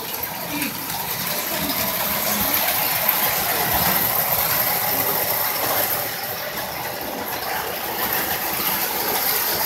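Marx O-gauge electric toy passenger train running on three-rail tinplate track: the steady mechanical whir of its motor, gears and wheels, with faint clicks here and there.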